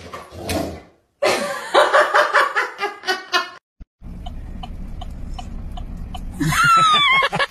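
A person laughing in quick, rhythmic pulses, breaking off for a few seconds, then a high, wavering cry that falls in pitch near the end.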